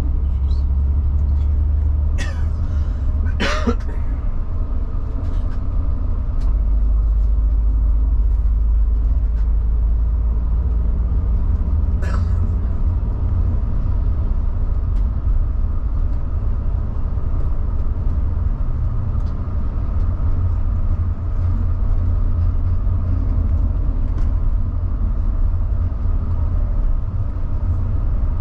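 Mercedes-Benz Travego coach driving, heard from the front of the cabin: a steady low engine drone with road rumble. Brief noises come about two and three and a half seconds in and again near twelve seconds.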